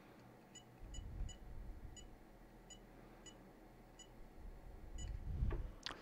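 Short, identical high electronic beeps from FPV goggles with a FuriousFPV TrueD-X receiver module, one per button press while scrolling the settings menu, about nine in all at irregular intervals. Just before the end comes a brief swooping sound with a low thump.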